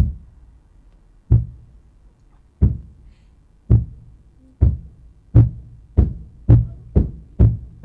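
About ten heavy booming thuds, a horror sound effect. The first few come more than a second apart, then they come faster and faster until there are about two a second.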